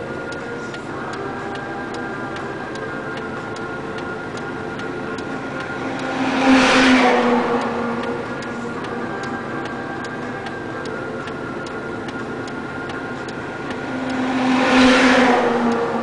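Two heavy dump trucks pass close by one after the other, each swelling up and fading over about two seconds, the first about six seconds in and the second near the end. Underneath runs a steady engine hum with an even ticking.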